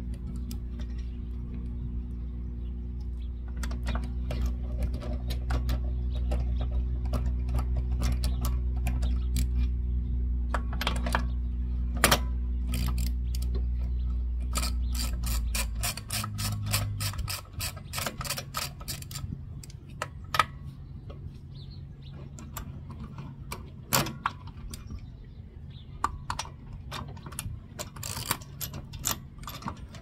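Ratchet wrench clicking in quick runs as the wheel nuts are worked off, with scattered tool clicks and knocks. Under it a steady low hum runs, then drops quieter and changes pitch about halfway through.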